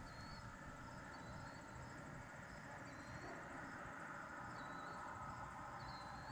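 Faint insects trilling steadily, with a short high chirp repeating about once a second, over a low steady rumble.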